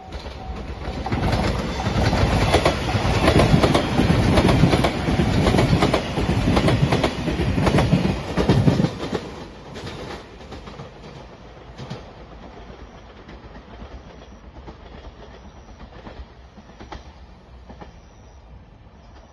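Shiokaze limited express electric train passing at speed, its wheels clattering over the rail joints; loud for about eight seconds, then fading as it draws away. A level-crossing bell is ringing at the start and stops about a second in.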